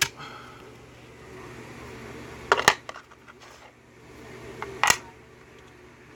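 Small metallic clicks and clinks from a handled EVVA euro cylinder lock and picking tools: a sharp click at the start, a quick cluster of clicks about two and a half seconds in, and one more click about five seconds in.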